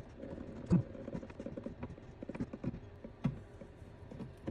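Irregular small clicks and knocks from the braided supply hose's coupling nut being turned and worked loose from the toilet fill valve's shank, with two sharper knocks, one just under a second in and one about three seconds in.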